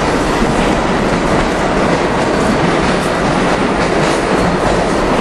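Subway train noise in an underground station: a loud, steady rumble and rattle that holds level throughout.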